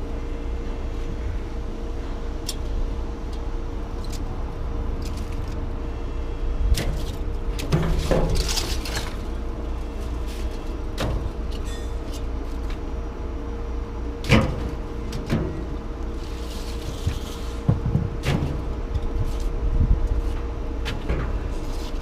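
A vehicle engine running steadily with a constant low rumble and hum, with scattered short knocks and clatters, the sharpest about a third of the way in and again about two-thirds of the way in.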